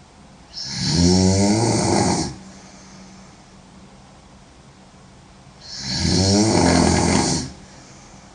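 A woman snoring loudly: two long snores about five seconds apart, each a low buzzing snore lasting nearly two seconds.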